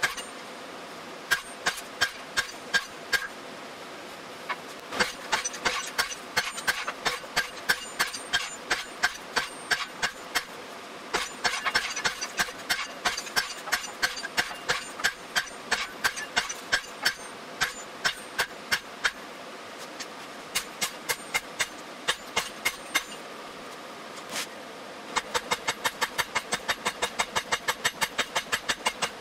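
Hand hammer striking red-hot steel on an anvil, in runs of quick blows with short pauses, the anvil ringing after each strike. Near the end the blows come in a fast, even run.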